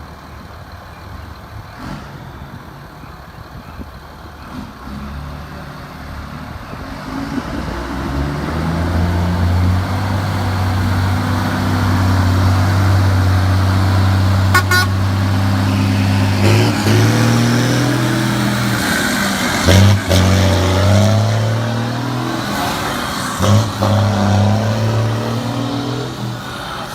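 Chipped diesel engine of a small bonneted truck running with a deep, steady exhaust drone. It swells about seven seconds in, holds its note with a few brief dips, and eases off near the end.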